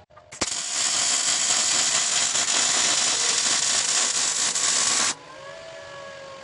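MIG welding arc laying a bead on the steel tank: a steady hiss that starts about half a second in and cuts off after about five seconds.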